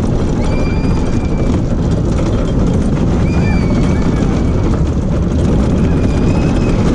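Mack Rides bobsled coaster train running at speed down its open trough of steel tubes, heard from the front car: a loud, steady rumble of the car's wheels on the tubes. Three short high squeals come through, about half a second in, around three seconds in and near six seconds in.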